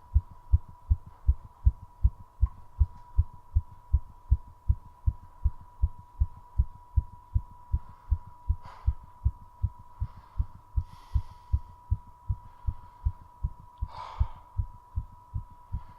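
Fast human heartbeat: rapid, regular low thumps, about two a second, with the heart rate raised while recovering from a bout of squats. A few breaths come a little past the middle and again near the end.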